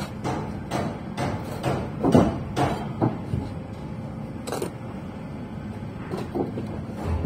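Irregular knocks and taps of bricklaying work, bricks and tools knocking against the brickwork and scaffold. About a dozen sharp knocks come unevenly spaced, the loudest about two seconds in.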